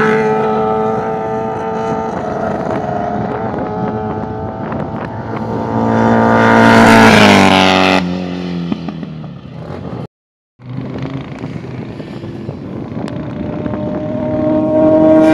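Classic racing motorcycles passing at speed. One engine grows to a loud pass about seven seconds in and drops in pitch as it goes away. After a brief gap, another motorcycle approaches, getting louder toward the end.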